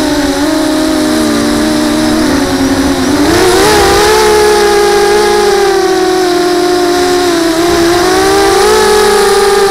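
Electric motors and propellers of a multirotor drone whining, heard from its onboard camera, several rotors at slightly different speeds. The pitch sags about two seconds in, climbs sharply a second later, dips again near the end and rises once more as the throttle changes.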